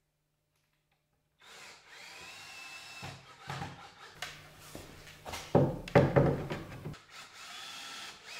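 Cordless drill driving screws into a Douglas Fir 2x4 stud: the motor whines in runs after a second or so of silence, with a few loud clunks around the middle, then another short run near the end.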